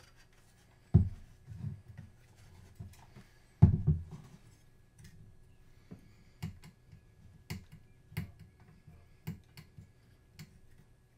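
Small parts of a partly disassembled Matterport Pro 3 camera being handled. There are two heavier knocks, about a second in and near four seconds, then a run of small sharp clicks roughly once a second.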